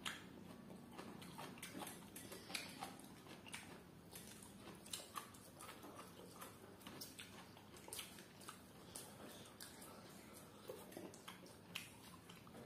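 Faint eating sounds: irregular small clicks and mouth smacks from chewing, and from fingers picking at grilled fish.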